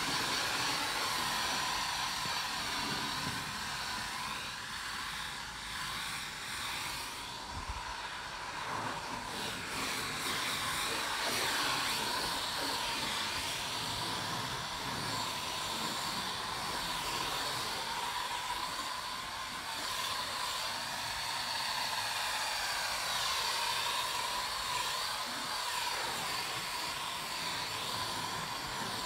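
Garden-hose spray lance jetting plain water onto a car's bodywork, a steady hiss of spray and spattering water.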